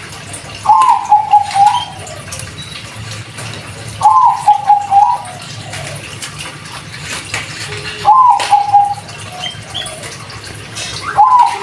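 A Bangkok-strain zebra dove (perkutut) cooing: four song phrases about every four seconds, each a high rising opening note followed by a quick run of rolling coos.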